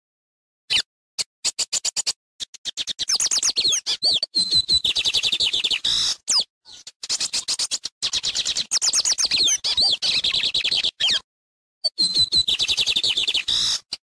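Male lined seedeater (bigodinho) singing very loud: each song phrase begins with a few spaced notes and speeds up into a fast, dense run of high chattering notes. Three phrases, with short silent gaps between them.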